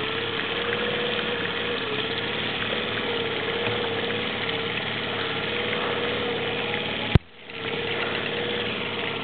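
Boat motor idling steadily, with a faint, slightly wavering tone over the running noise. About seven seconds in a single sharp knock, after which the sound briefly drops away and returns.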